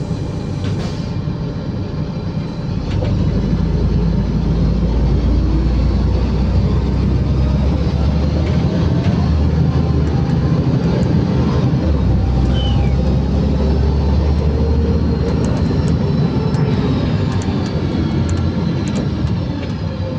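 LiAZ 5292.65-03 bus heard from inside the passenger cabin: a deep engine and drivetrain rumble with road noise as the bus pulls away. The rumble grows louder about three seconds in as the bus accelerates.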